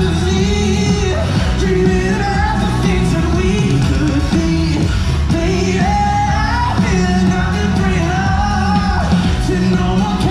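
Live pop-rock music: a singer carrying a melody over a loud band with a heavy bass.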